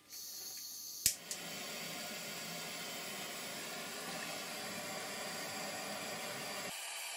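Handheld gas blowtorch: gas hissing from the nozzle, a sharp ignition click about a second in, then the lit flame burning with a steady hiss.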